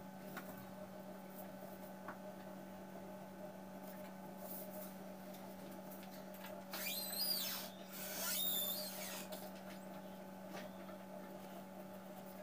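Steady low electrical hum, interrupted by two high, whistle-like calls that rise and then fall in pitch, each about a second long, around seven and eight and a half seconds in.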